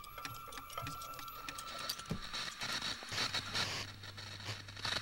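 Designed sound texture of scattered clicks and ticks over a thin held tone that fades out a little past two seconds in. A brighter crackling hiss and a low steady hum come in near the middle.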